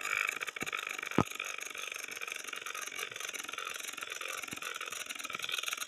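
Beyblade spinning top whirring with a steady high buzz and a fast flutter, giving a sound like a small motor running; a sharp click about a second in.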